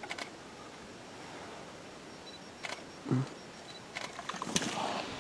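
A few scattered sharp clicks and a short low knock against a quiet background, with a brief rustle about four and a half seconds in.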